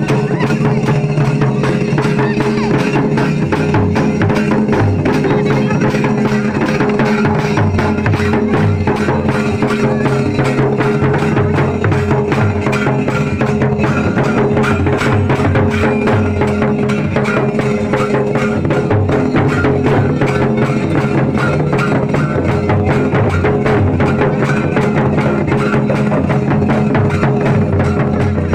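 Santali folk drumming: a tumdak' barrel drum and a tamak' kettle drum beaten by hand in a fast, unbroken rhythm over a steady held tone.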